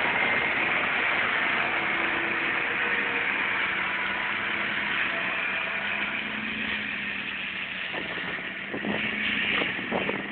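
Massey Ferguson 7485 tractor running a boom-mounted Herder flail mower on a ditch bank: a steady engine drone with a whine from the mower head, with a few knocks near the end.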